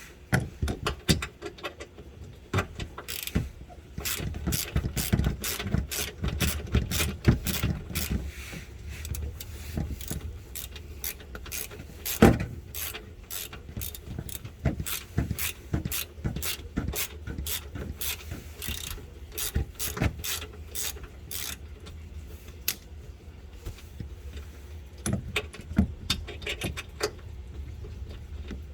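Ratchet wrench clicking in quick irregular runs as it backs out a 10 mm bolt holding the engine undercover shield, over a low steady hum.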